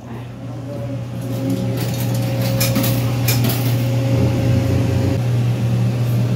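A steady low mechanical hum with a thin steady tone above it, growing louder over the first couple of seconds, with a few sharp clicks and clinks between about one and three and a half seconds in.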